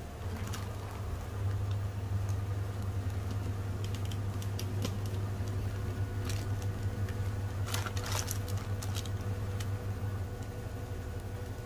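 Panasonic NA-V10FX2LVT 10 kg inverter front-load washing machine in its spin cycle: a steady low hum of the spinning drum with scattered light ticks.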